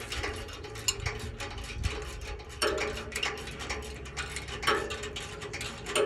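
Irregular metallic clinks, knocks and scrapes of hand tools against the steel blades and bolts of a straw reaper's cutting drum as its broken blades are unbolted and replaced.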